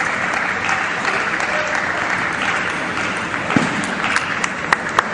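Spectators applauding after a table tennis point, easing off about three and a half seconds in, then a few sharp clicks of a table tennis ball near the end.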